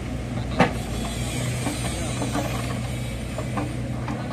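Kubota U50 mini excavator's diesel engine running steadily, with a sharp knock about half a second in and a few fainter clanks.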